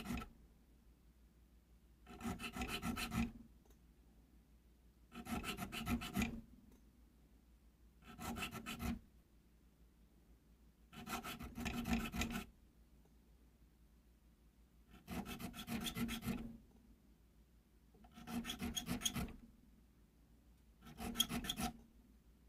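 Small triangular needle file rasping notches into the spine of a pair of knife liners clamped in a vise. Seven short spells of quick strokes, each about a second long and about three seconds apart, one notch at each scribe line.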